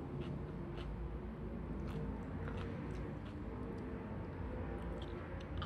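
A person chewing a bite of fried fish ball, with a few small, scattered mouth clicks, over a steady low rumble.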